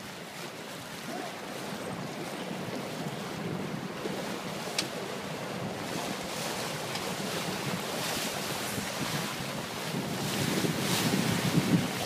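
Wind buffeting the microphone over the rush and splash of sea water in a fishing boat's wake, with a low engine hum underneath. It grows louder and rougher near the end as the white water churns up close behind the stern.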